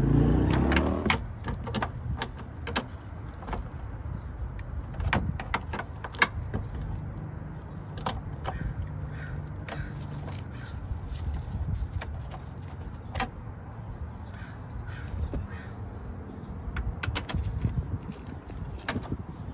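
Irregular metallic clicks and clinks of a ratchet and socket on the engine mount bolts. A low rumble fades out about a second in.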